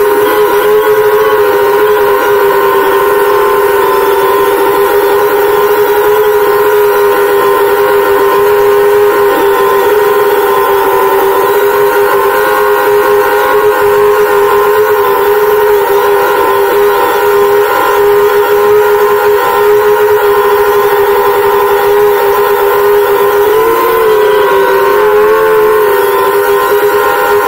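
FPV quadcopter drone's electric motors and propellers whining at a steady high pitch, as heard from the 360 camera mounted on the drone. The pitch wavers briefly near the end.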